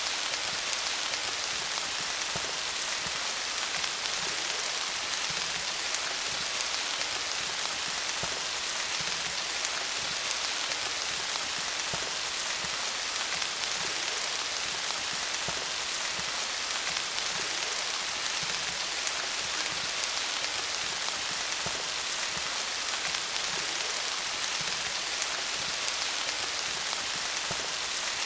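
Steady rain falling on leaves: an even hiss of rain with many small, close-spaced drop ticks, unchanging throughout.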